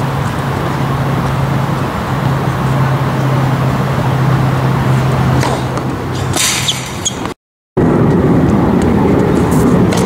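A steady rumble with a constant low hum, like nearby road traffic, and a faint crack of a tennis ball struck on a serve about five seconds in. A brief hiss follows near seven seconds, then the sound cuts out for a moment and comes back with a different background noise.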